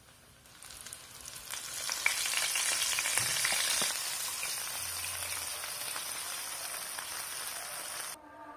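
Battered oyster mushrooms deep-frying in hot oil in a wok, the oil sizzling and bubbling. The sizzle builds from about half a second in, is loudest a few seconds in, then holds steady and cuts off suddenly near the end.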